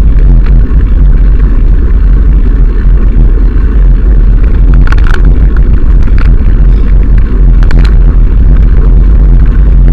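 Heavy wind buffeting on the camera's microphone while riding a bicycle along a gravel path, a loud low rumble. A couple of short rattles from bumps come about halfway and near the end.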